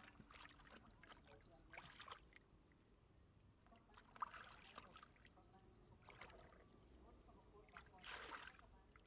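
Hands splashing and sloshing in shallow muddy water while groping for fish, a few short faint splashes, the loudest about eight seconds in.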